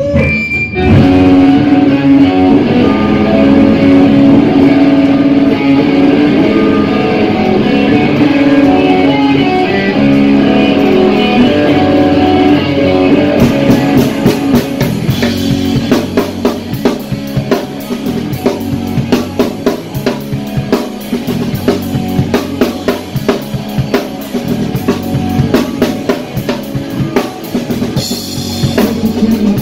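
Rock band playing live, instrumental: held guitar notes ring out over a drum kit. About thirteen seconds in, the drumming gets busier and sharper, with quick cymbal and snare hits dominating.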